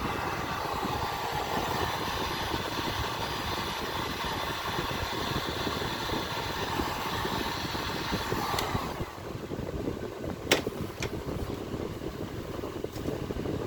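Electric heat gun blowing steadily while shrinking heat-shrink tubing over twisted wire splices. About nine seconds in it is switched off and its fan winds down with a falling whine, followed by a couple of sharp clicks.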